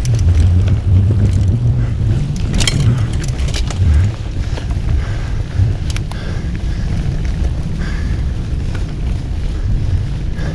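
Mountain bike rolling along a dirt forest trail, heard through heavy wind rumble on the bike-mounted camera's microphone, with tyre noise and scattered rattles and clicks from the bike over the bumps, a cluster of them about two and a half seconds in.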